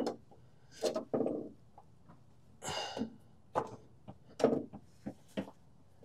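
A few light, scattered knocks and clicks as a Subaru Sambar carburetor is worked by hand onto the intake manifold over its stacked gaskets, with a breathy sigh about three seconds in.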